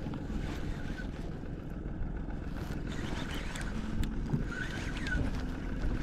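Steady low rumble of wind and rippling water around a small fishing boat on open lake water, with a few faint high chirps in the second half.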